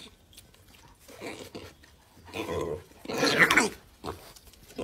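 A few short animal calls from the dog and pig at the food pot, three in all, the last about three seconds in the loudest and longest, with a pitch that bends.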